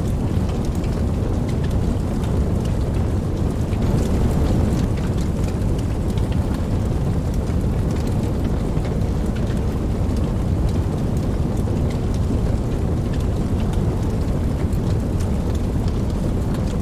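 Steady rain falling, with scattered drop taps, over a deep low rumble of distant thunder that swells slightly about four seconds in.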